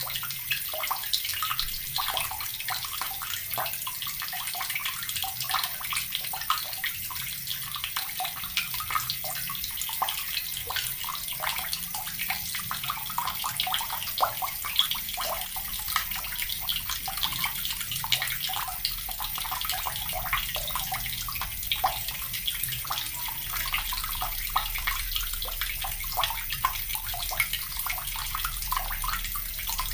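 Water running steadily from a tap into a plastic bucket, a continuous splashing hiss with irregular small plops and gurgles.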